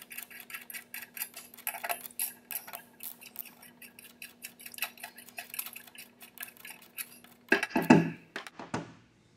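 Small steel bolts clicking and clinking against the metal housing of a gas forge as they are unscrewed and taken out, in quick irregular ticks. Near the end there is a brief louder, pitched sound.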